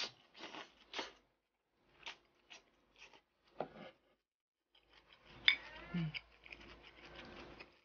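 Close-up eating sounds: a few short sips from a soup bowl, sparse soft mouth clicks while chewing, then metal tongs clicking and rustling through cold buckwheat liangpi noodles in a bowl from about five seconds in, with one sharp clack.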